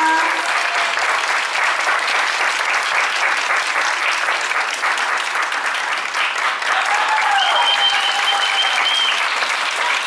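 Audience clapping and cheering steadily. A long, high held whoop rises above the clapping about seven seconds in.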